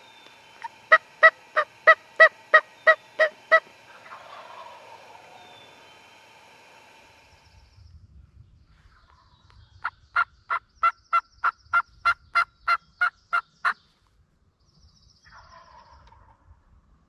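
Turkey yelping: two runs of evenly spaced, pitched notes at about three a second. The first run is about ten notes, and about ten seconds in comes a second run of about thirteen.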